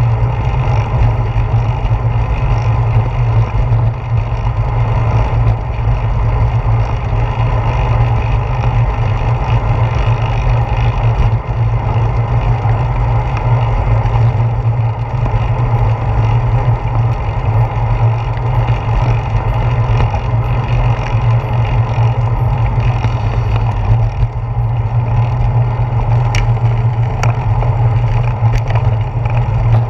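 Steady wind rush and road rumble on a handlebar-mounted GoPro Hero 4 riding along on a bicycle over pavement, deep and unbroken. A few sharp clicks come near the end.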